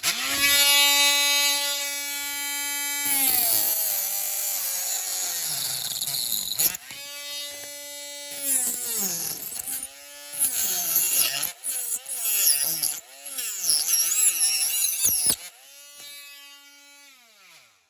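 Small handheld power tool whining at high speed on a diecast model. Its pitch sags and wavers again and again as it bites under load, then it is switched off near the end and winds down with a falling whine.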